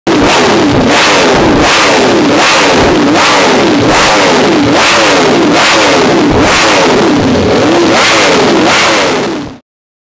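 Ducati Streetfighter V4S's V4 engine, fitted with an aftermarket carbon-fibre exhaust, free-revved over and over, about one rev every 0.7 seconds, cutting off abruptly near the end.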